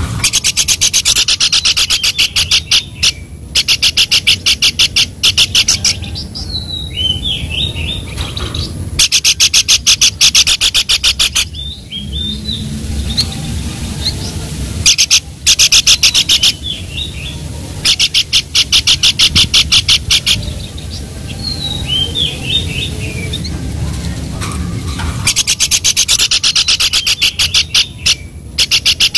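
Pelanduk (babbler) song, as used for songbird training recordings: fast rattling trills of rapid, evenly spaced notes, each trill two to three seconds long, repeated about six times with pauses holding softer chirps, over a steady low hum.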